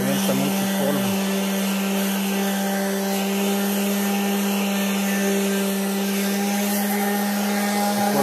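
Milwaukee M18 cordless orbital sander running steadily as it sands a painted steel beam: a constant-pitched motor hum over the hiss of the pad on the paint.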